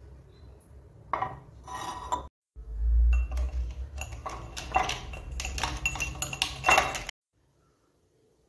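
Ceramic bathroom containers and a soap dish clinking and knocking against a glass corner shelf as they are handled, in a dense run of sharp clinks with a brief ring. The sound cuts off abruptly about seven seconds in.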